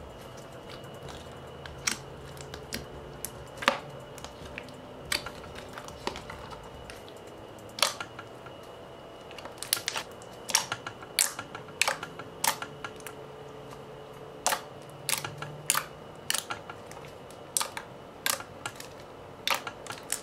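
Clicky slime being poked and squeezed by hand, giving irregular sharp clicks and pops that come thicker in the second half, over a faint steady hum.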